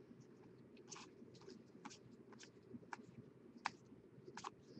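Faint, irregular soft ticks and rustles, about two or three a second, of baseball trading cards being flipped through by hand, one card slid off the stack over the next.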